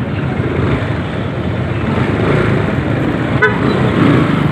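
Motorcycle riding through traffic, with steady engine and wind rumble and a short horn toot about three and a half seconds in.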